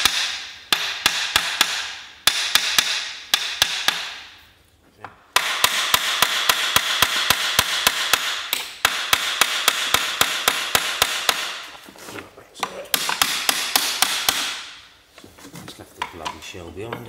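Hand socket ratchet clicking rapidly in several runs of one to three seconds, each run fading away, as the main bearing cap nuts on a stripped AEC diesel bus engine are undone.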